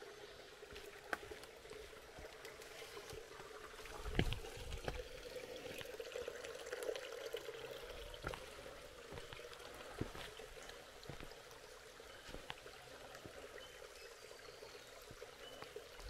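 Creek water trickling and pouring steadily, with a few scattered thumps, the loudest about four seconds in.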